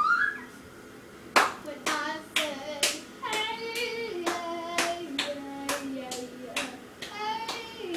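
A boy singing a tune in held notes that step downward, while beating time with his hands in sharp hits about two a second.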